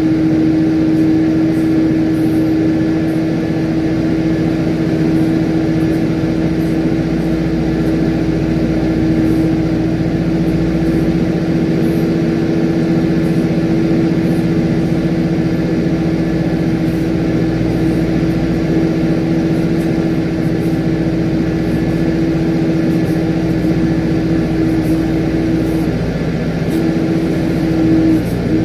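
Steady loud drone of a Boeing 777-300ER and its pushback tug during pushback, heard close beside the nose gear, with a constant low hum. The hum wavers and breaks up near the end.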